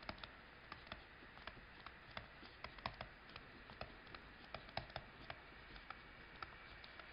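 Faint, irregular clicks of a stylus tapping on a tablet's writing surface as words are handwritten, several a second.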